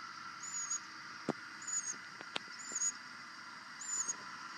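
A bird's short high-pitched chirp, repeated about once a second, over a faint steady background hum, with two sharp clicks in the middle.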